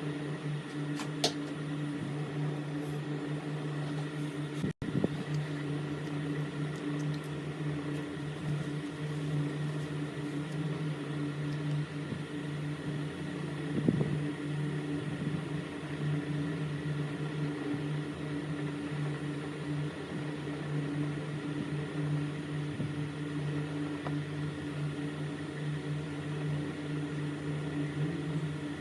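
Steady low machine hum, like a small fan or motor running, with a few faint clicks and a brief dropout about five seconds in.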